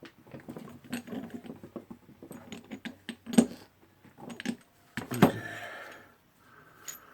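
Small metal parts clicking and scraping as a spring ring is pressed onto the clutch gear assembly of a Makita HR2470 rotary hammer, with sharper clicks about three and a half and five seconds in; the second rings briefly.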